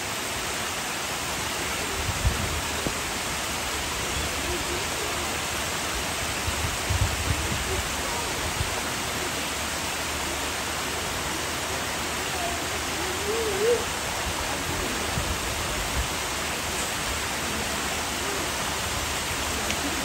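Water of a mountain stream running steadily as an even rushing sound, with a few brief low thuds.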